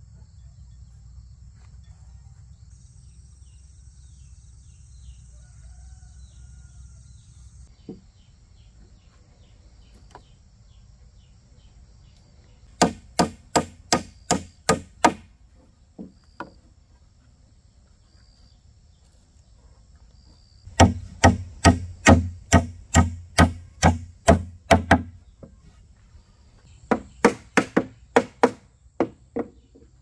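Three runs of quick, sharp blows of a hand tool, about three or four a second, the middle run the longest and loudest. Crickets chirp steadily between them.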